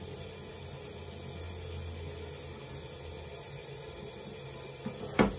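Kitchen tap running steadily into a stainless steel sink while a pot of boiled runner beans is drained. A single sharp knock comes near the end.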